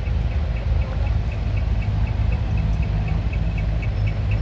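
Heavy diesel trucks idling, a steady low rumble, with a faint high ticking repeating about four times a second over it.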